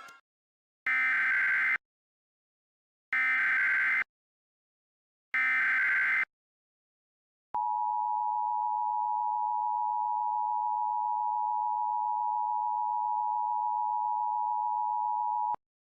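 Emergency Alert System activation tones: the SAME digital header sent as three short bursts of data squawk about two seconds apart, then the steady two-tone attention signal for about eight seconds, cutting off sharply.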